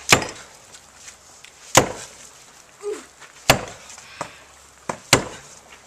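A long-handled digging tool chopping into packed flood silt and hail debris: four sharp strikes, evenly spaced about a second and a half apart, with a few lighter knocks between them.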